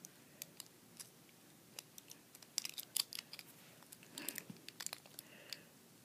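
Packaging of a Master Lock combination padlock being handled and opened by hand: scattered small clicks and crinkles, coming in brief flurries about two and a half seconds in and again around four to five seconds in.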